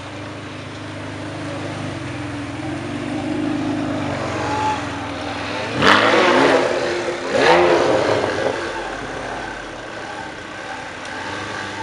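Ferrari 612 Scaglietti's V12 pulling away, then revving hard in two short bursts about a second and a half apart, the pitch rising sharply in each before easing off as the car moves away.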